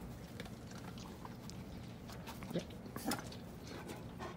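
German shepherd puppy making faint sniffing and snuffling noises with her nose, with two short louder sounds about two and a half and three seconds in.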